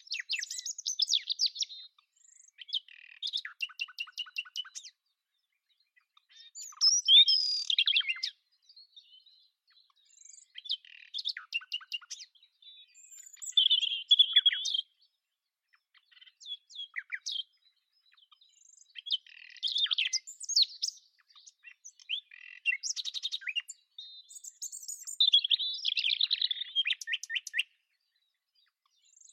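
Nightingale singing: a run of separate phrases a second or two long, many of them rapid trills of repeated notes, with short pauses between them.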